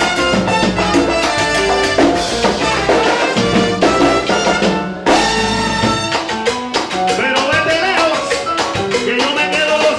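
Salsa band playing live, with percussion under the full band; voices singing come in over it in the second half.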